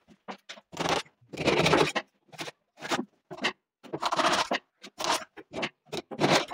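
Short, irregular scrapes and knocks of hand work inside a wall cabinet: about a dozen brief bursts with silent gaps between them.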